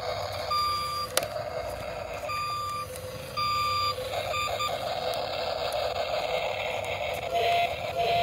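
Toy remote-control excavator's small electric motors and gears whirring steadily as it works its arm. Over this, its built-in warning beeper sounds four times in the first five seconds, each beep short and at one fixed pitch.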